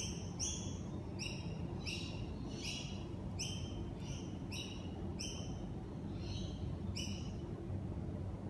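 A bird calling over and over: about a dozen short, high chirps, roughly one every half second or so, stopping about seven seconds in. A steady low rumble runs underneath.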